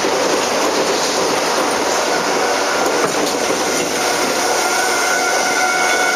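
Ex-Tokyu 7000 series electric train car running on the rails, heard from inside the rear cab: a steady wheel-and-rail rumble with a single click about three seconds in. A faint high whine joins in about two seconds in.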